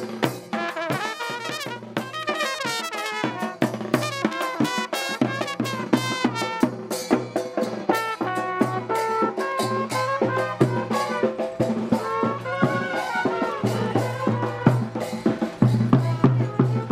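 Brass band playing: trumpets carry a melody over constant drumming, with a low sustained note under it that swells near the end.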